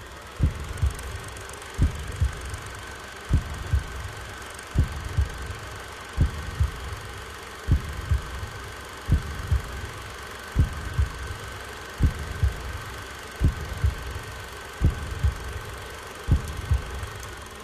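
Low double thumps in a slow heartbeat rhythm, one pair about every second and a half, over a steady high tone that cuts off near the end.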